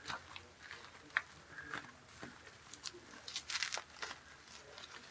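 Plastic bubble wrap being handled and unwrapped, crinkling and rustling with scattered sharp crackles and a denser flurry of them about three and a half seconds in.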